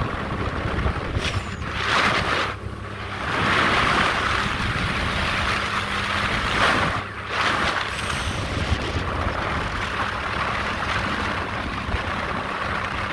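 Motorboat under way: its engine runs with a steady low hum while water and wind rush past, swelling and easing several times.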